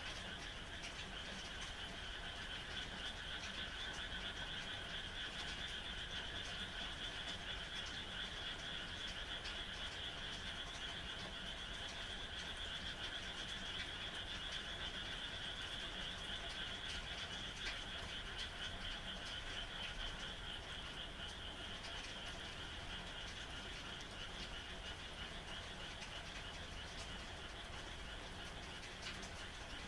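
A chorus of frogs calling in a continuous, dense trill over steady rain, easing off a little in the last third.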